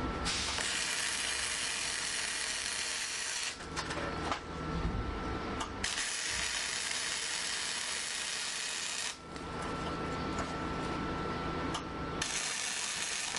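Welding arc crackling in three bursts of about three seconds each, with short pauses between beads.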